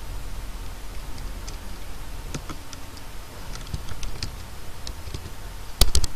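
Computer keyboard keystrokes, a few scattered taps typing a short file name, then a quick cluster of louder, sharper clicks near the end, over a low steady hum.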